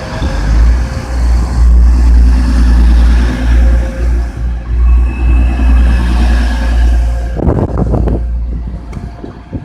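Class 185 diesel multiple unit pulling out of the station, its diesel engines running under power with a heavy, steady rumble. The rumble eases off near the end.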